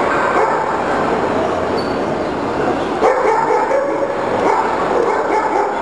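Dogs barking and yipping amid steady crowd chatter.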